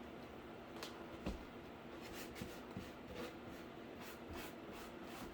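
Faint scratchy rubbing strokes and a few light taps, over a steady low hum.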